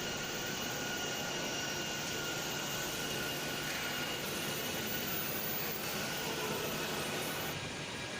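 Steady machinery noise of CNC routers running, an even rush with a faint high whine.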